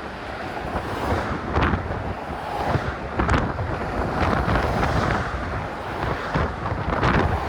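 Strong wind buffeting a phone's microphone that is half-covered by a sock, a gusting low rumble and rush with brief sharper blasts.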